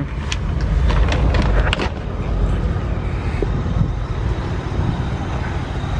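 1960 Chevrolet Impala's 283 V8 idling steadily and running smoothly, with a few clicks and knocks in the first two seconds.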